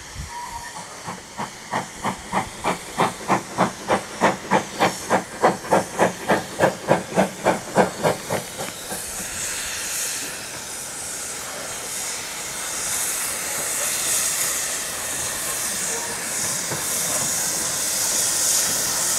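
Steam locomotive working, its exhaust beating at about two and a half chuffs a second; the beats swell and then die away about nine seconds in. After that comes a steady hiss of steam that grows louder near the end.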